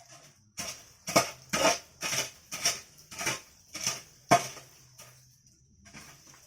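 A run of about eight sharp knocks or clatters, roughly two a second, stopping about two-thirds of the way through, over a faint steady high whine.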